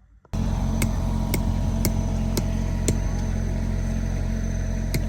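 An engine running steadily, with a sharp tick about twice a second, cutting in abruptly.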